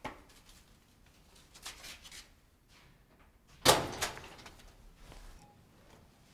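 A door banging shut about two-thirds of the way in, a sharp knock with a short rattle after it, following a few faint footsteps.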